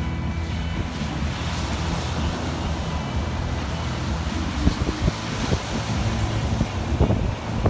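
Surf breaking and washing up the beach under a strong wind, which buffets the microphone with irregular low thumps that grow more frequent in the second half.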